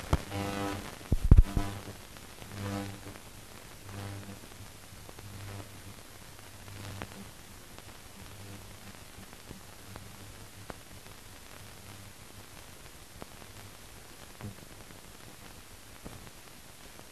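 Faint band music of repeated low notes, about one and a half a second, that fades away after about seven seconds, leaving only the steady hiss of an old optical film soundtrack. A sharp loud pop comes about a second in.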